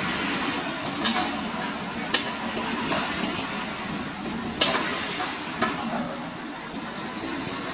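Excavator engine running steadily while it works, with four sharp knocks, the loudest about halfway through.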